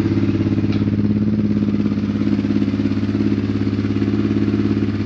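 Honda Transalp's V-twin engine idling steadily with an even, rapid exhaust pulse.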